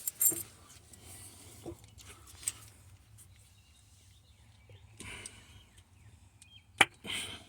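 Scattered sharp clicks and knocks with short bouts of rustling, from hands handling small parts and tools during a wiring job, over a low steady hum.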